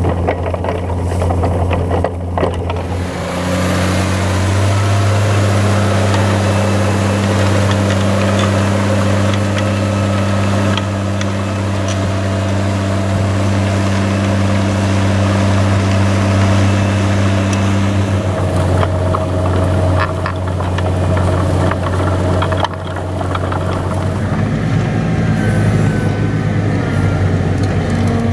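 New Holland T7060's six-cylinder turbocharged diesel engine running steadily under load while pulling a mounted plough. Its note shifts a few seconds in, changes again about 18 seconds in, and dips briefly near 23 seconds before running on.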